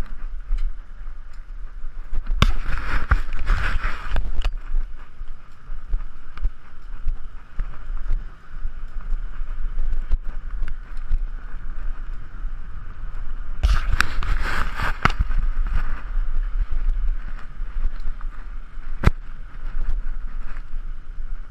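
Riding noise from a GoPro on a moving bicycle: a steady rumble of wind on the microphone. There are two spells of loud rattling hiss of about two seconds each, a couple of seconds in and again midway, and a single sharp click near the end.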